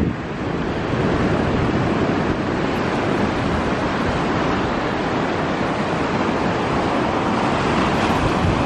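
Small sea waves breaking and washing up a sandy beach, a steady rushing surf.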